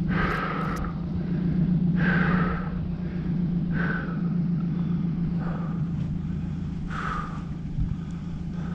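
Pickup truck engine idling with a steady low hum. Short harsh calls come about every two seconds over it.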